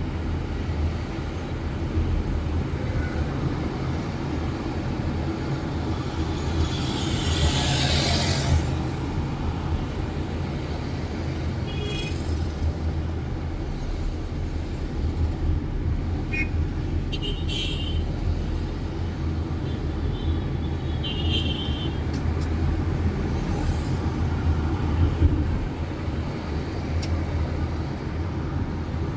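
Road traffic: a steady low rumble of vehicles, with a hissing surge about eight seconds in and a few short high-pitched squeaks or beeps later on.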